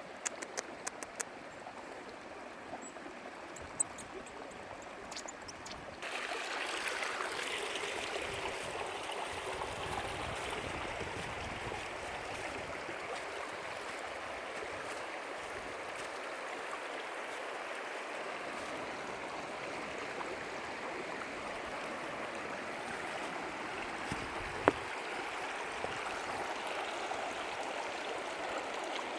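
Mountain creek running over stones, a steady rushing of water that suddenly gets louder about six seconds in.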